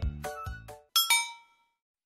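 Background music trails off, then a single bell-like ding sounds about a second in and rings out briefly.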